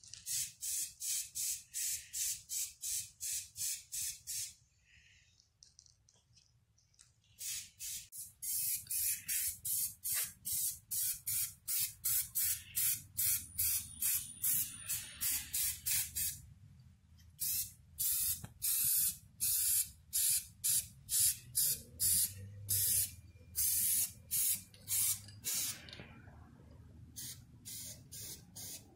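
Aerosol spray-paint can sprayed at a canvas in rapid short bursts, about three a second, in several runs with pauses of a few seconds between them.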